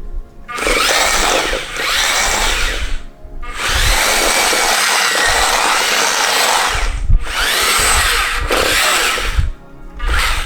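Electric drive motors of a remote-control Chopper (C1-10P) astromech droid toy whirring as it drives across the floor, in three runs: one of about two and a half seconds, a longer one of about six seconds, and a short one starting near the end.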